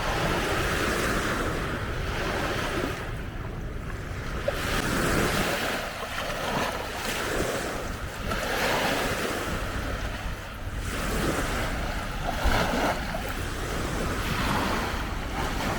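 Small lake waves washing onto a beach, swelling and ebbing every second or two, with wind rumbling on the microphone.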